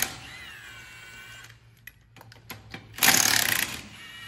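Milwaukee impact wrench taking lug nuts off a pickup's front wheel: a falling whine as the motor winds down at the start, then a short burst of impact hammering about three seconds in, followed by another wind-down whine. Light clicks fall between the bursts.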